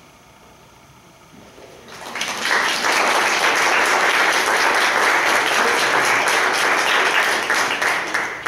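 Audience applauding in a church. The clapping swells in after about a second and a half of quiet and begins to thin out near the end.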